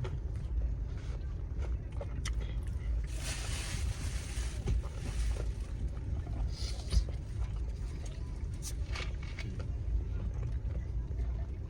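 Steady low rumble inside a car, with a few seconds of rustling about three seconds in, another short bit near seven seconds, scattered small clicks, and one sharp knock about seven seconds in.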